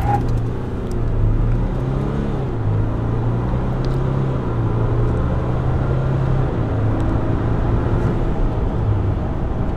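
2020 Ram 1500's 3.0-litre EcoDiesel V6 turbodiesel under hard acceleration from 12 to 64 mph, heard from inside the cab. The engine note climbs and drops back several times as the automatic shifts up through the gears.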